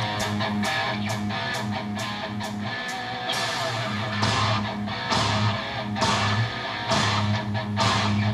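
Rock music with electric guitar, bass and a steady drum beat, played from the cassette section of a vintage 1980s Alpine pull-out car stereo through bench-top car speakers.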